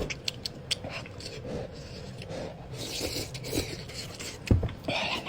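Rubbing and scraping, with scattered light clicks and a louder knock about four and a half seconds in.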